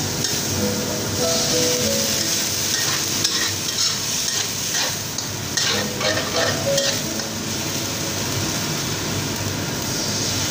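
Food sizzling in a hot wok while a spatula stirs and scrapes chicken, mushrooms, garlic and chilli across its honeycomb-textured surface, a little water having just gone into the hot oil.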